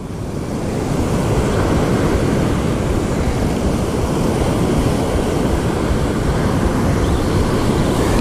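Steady rumble of wind buffeting the microphone, mixed with surf breaking on the beach. It builds up over the first second.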